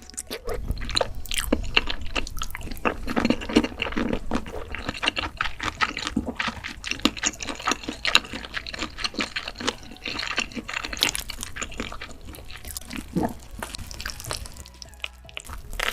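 Wet, close-up mukbang eating sounds: a dense run of small wet clicks and smacks from chewing and slurping saucy food, busiest in the first half.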